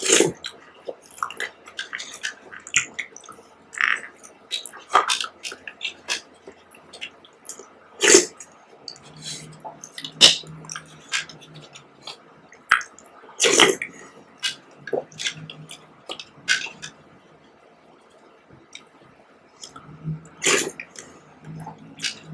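Close-up eating of grape-topped jelly: a spoon clicking and scraping in a clear plastic cup, with soft wet squishes and mouth sounds and a few louder wet bursts.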